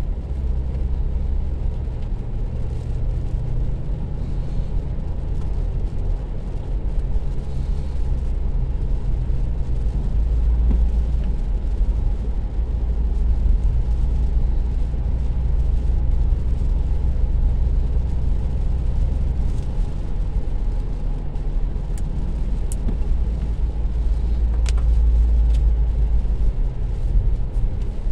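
A car driving on a wet town street, heard from inside the cabin: a steady low road and engine rumble that swells and eases slightly, with a few light clicks about three quarters of the way through.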